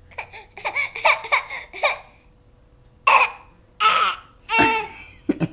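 Infant about eight months old making funny vocal sounds: a run of short babbling noises, then three loud, high-pitched laughing squeals and a couple of short ones near the end.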